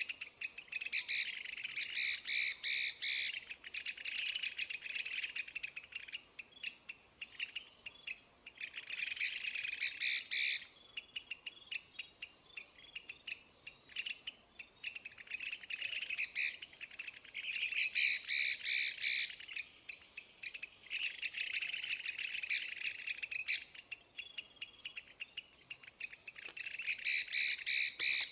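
Hwamei (Chinese hwamei, Garrulax canorus) singing: long runs of fast, high, varied notes lasting a few seconds each, broken by short pauses.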